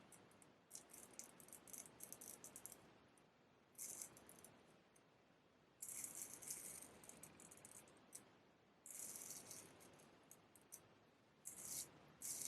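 Straight razor blade strokes: faint, short scraping bursts with fine crackle, coming at irregular intervals of one to three seconds.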